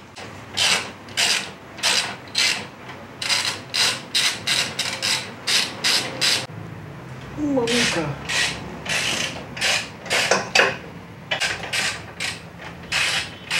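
Ratchet wrench clicking in repeated back-and-forth strokes, about two a second, with a short pause about halfway, loosening crash bar bolts on a motorcycle.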